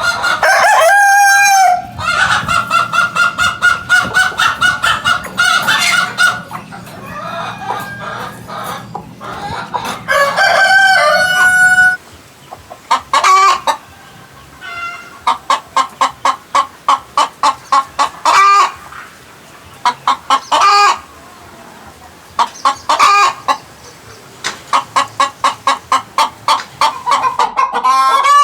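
Chickens making odd, drawn-out pitched calls, then, after a sudden change about twelve seconds in, runs of rapid clucks that each build to a louder call, repeated about five times.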